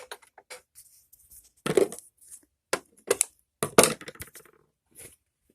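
Irregular handling noises at the sewing machine: light clicks and rustling, with a few sharper knocks about two, three and four seconds in. The machine's motor is not running.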